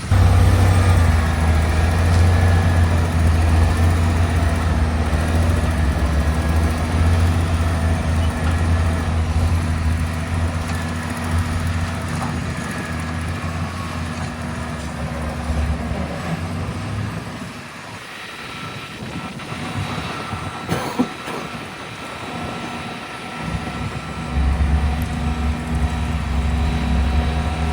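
Heavy diesel engine of a truck or construction machine running close by, with a steady low drone. It fades about two-thirds of the way through, a few knocks are heard, and then it comes back loud near the end.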